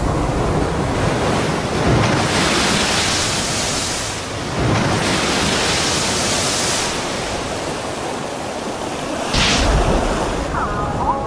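Heavy surf breaking against a rocky shore: a continuous rush of crashing waves, swelling with big breakers about two, five and nine and a half seconds in.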